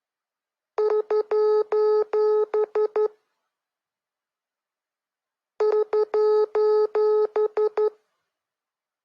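Morse code sent as a steady beeping tone, short dots and longer dashes keyed on and off. Two bursts of about two seconds each carry the same pattern, with silence between them.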